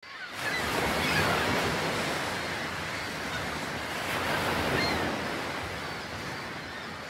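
Sea waves washing onto the shore, fading in and swelling twice.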